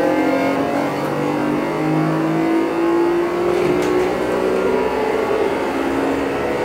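Keio 8000 series train's Hitachi GTO-VVVF inverter and traction motors, heard from inside the car directly above the control unit: the magnetic whine of the motors, several tones gliding slowly up in pitch, over the steady noise of the running train.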